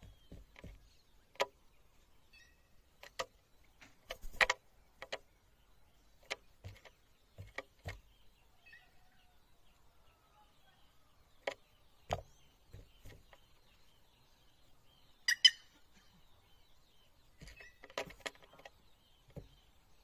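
White-naped jays pecking at papaya close to the microphone: scattered sharp taps and knocks of beaks on the fruit, with the loudest about four seconds in and again near the middle, and a few faint short chirps.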